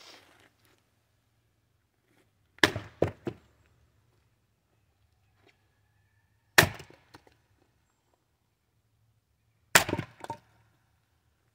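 Fiskars X27 splitting axe striking a red oak log three times, about three to four seconds apart. Each blow is a sharp crack of the wood, and the first and last are followed by one or two quieter knocks.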